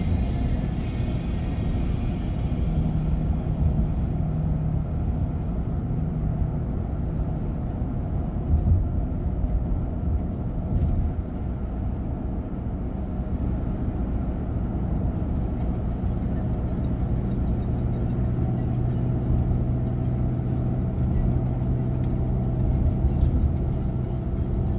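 Car cabin noise while driving: steady road and tyre rumble with a low engine hum, its pitch shifting slightly lower in the second half.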